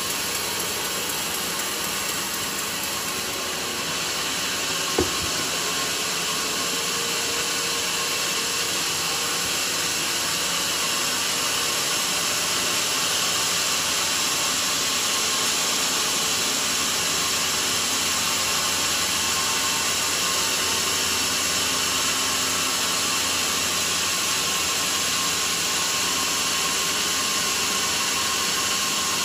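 Band sawmill blade running through a mahogany log, cutting it lengthways into a plank: a steady, even hiss of the band and its drive. A single sharp knock comes about five seconds in.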